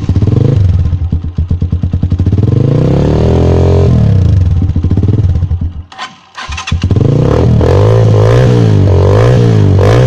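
Italika 125Z motorcycle's single-cylinder engine running through a modified exhaust whose muffler internals came from a 1000 cc bike, without backfiring. It revs up and back down a few seconds in, drops out about six seconds in, then comes back and is revved repeatedly in short blips.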